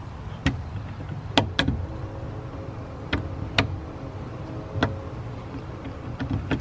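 Sharp clicks and taps of small metal hardware, about seven spread unevenly, as a screw is fitted through a washer and foam sponson held between C-clamps on an aluminium canoe frame. A steady low rumble runs underneath.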